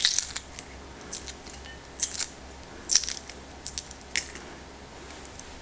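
A series of short, crisp clicks or snips from food preparation, irregularly spaced and often coming in pairs, over a faint steady hum.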